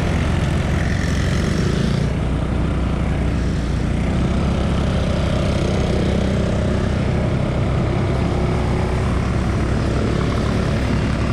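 Several small ATV engines running steadily.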